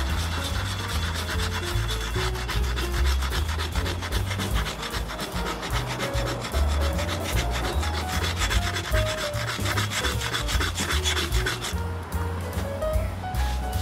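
Crumpled aluminum foil scrubbed back and forth over a wet chrome muffler, rubbing surface rust off the chrome in a steady rhythmic rasp. The scrubbing stops near the end.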